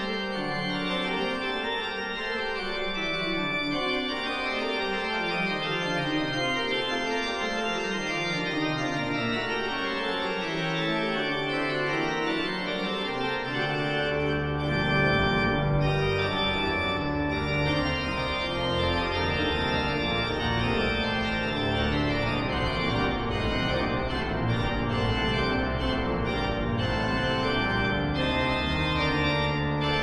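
Background music of sustained chords. In the first half a low part keeps sliding downward, and about halfway in a heavy bass comes in.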